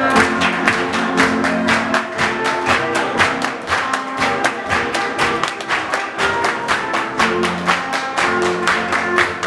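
German folk dance music playing, with sharp hand claps in a quick, even rhythm over it from the dancers clapping along.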